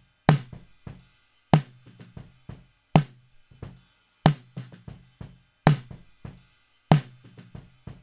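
A drum kit loop playing through a compressor while its release time is swept from fast to slow and back. A heavy hit lands about every 1.3 seconds, with lighter hits between.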